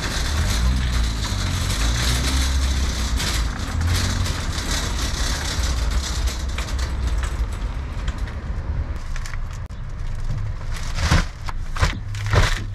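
A car driving, with a steady low rumble of engine and road noise. A few sharp knocks come near the end.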